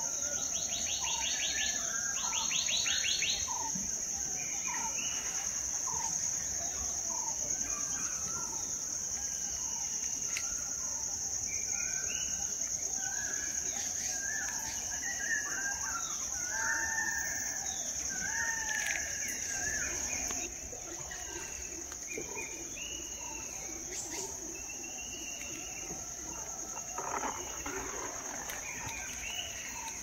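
Forest morning chorus: many birds chirping and whistling over a steady high insect drone of crickets or cicadas. A rapid trill sounds in the first few seconds, and the insect drone drops somewhat about two-thirds of the way through.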